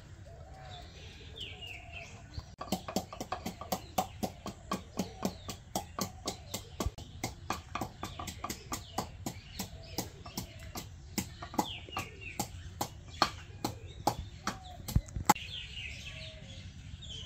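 Knife chopping food, a steady run of sharp knocks about four a second that starts about three seconds in and stops near the end. Birds call briefly a few times in the background.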